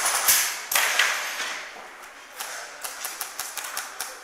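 A run of about ten sharp, irregular clicks and pops, typical of airsoft guns firing, comes after two noisy rushes in the first second and a half.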